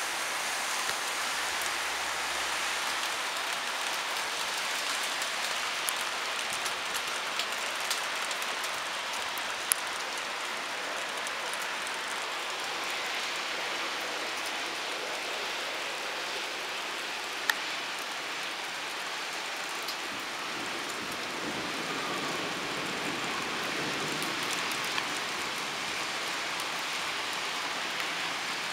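Cloudburst: torrential rain pouring down onto tarmac and flooded ground, a steady dense hiss. A few sharp ticks of drops striking close by, and a deeper rush swells briefly after the middle.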